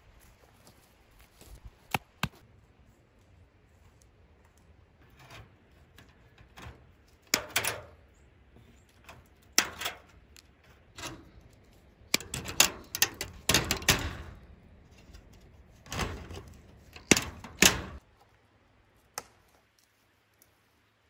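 Pliers working on wire fencing: scattered sharp clicks and clinks among louder scraping and rustling bursts, busiest in the middle.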